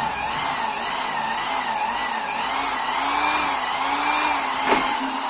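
Worcraft WID-1300 corded electric impact drill in plain drilling mode, running steadily while drilling into wood. Its motor whine wavers gently in pitch under the load, and there is one sharp knock near the end.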